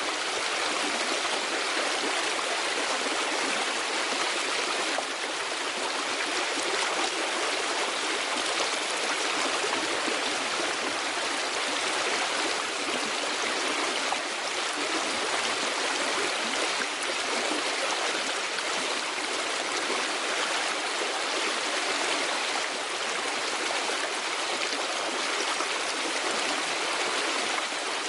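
Steady, even rushing of running water, with no deep rumble and no separate splashes or clicks.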